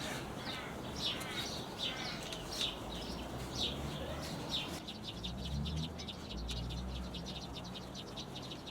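Birds chirping: a run of repeated short, downward-sliding chirps, then from about five seconds in a fast string of short ticking notes.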